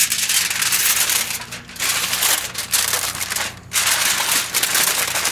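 Aluminium foil crinkling and crumpling as it is folded up by hand around a rack of ribs. It starts suddenly and goes in three spells, with short pauses about 1.7 and 3.6 seconds in.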